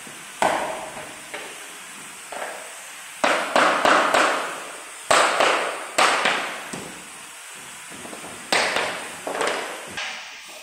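Sharp knocks on wooden floor planks being knocked and pressed into place over foam underlay: about a dozen irregular impacts, some in quick runs of three or four, each ringing briefly with an echo.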